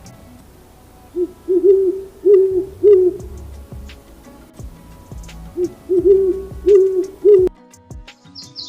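An owl hooting: two series of four short hoots, the first starting about a second in and the second about halfway through. The hooting cuts off suddenly near the end and is followed by brief high bird chirps.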